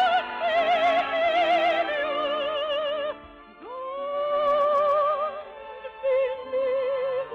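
Operetta singing with orchestra: a voice holds long notes with wide, even vibrato, one of them scooping up about halfway through and held for about two seconds.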